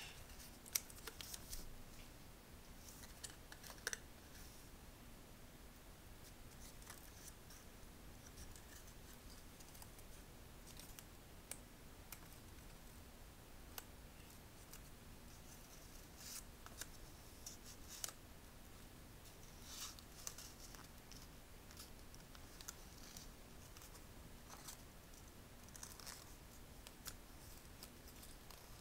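A small sheet of origami paper being folded and creased by hand: faint, scattered crinkles and rustles with a few sharper ticks, loudest in the first few seconds.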